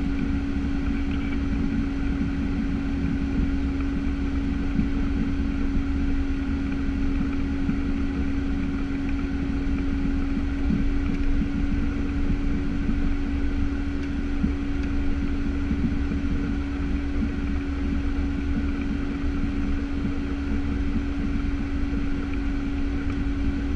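Piper Cheyenne II's twin Pratt & Whitney PT6A-28 turboprops running at low taxi power, heard from inside the cockpit. It is a steady drone: one held hum over a low rumble.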